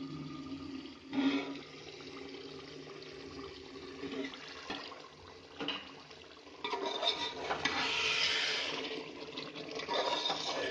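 Potatoes in watery tomato gravy bubbling at a boil in an aluminium pot, with a knock of the metal plate-lid as it comes off at the start. Louder sloshing near the end as a wooden spoon stirs the pot.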